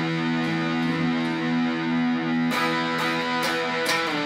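Distorted electric guitar playing an E chord that rings out, then is struck four more times about half a second apart, moving to a different chord right at the end.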